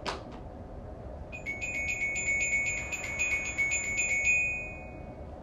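A rapid trill of high, bright bell-like notes, about seven strikes a second for some three seconds, with the last note ringing on and fading out.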